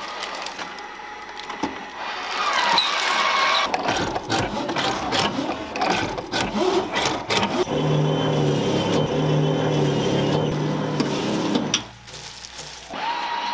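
Motors and mechanisms of automatic gimbap-rolling and sushi-making machines running: whirring, with many clicks and knocks. From about eight seconds in there is a steady pitched motor hum, which drops away sharply near the end.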